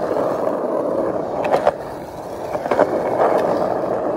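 Skateboard wheels rolling over a concrete sidewalk: a steady rumble broken by a few sharp clacks as the wheels cross cracks and joints in the pavement.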